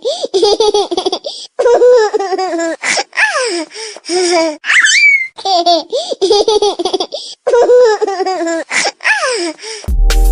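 Ringtone of a young child laughing in short high-pitched bouts, with squeals that rise in pitch. Near the end it cuts to an electronic music beat with heavy bass.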